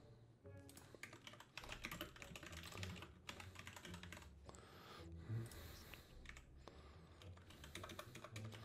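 Typing on a computer keyboard: faint runs of quick keystrokes with short pauses between them.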